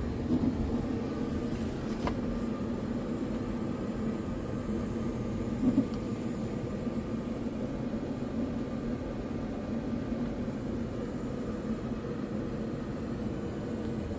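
Scania P truck's diesel engine idling steadily, heard from inside the cab as a low, even rumble, with two brief bumps about half a second in and near six seconds.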